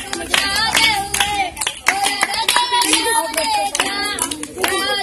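A group of children clapping their hands along to a bhajan, with children's voices singing over the claps.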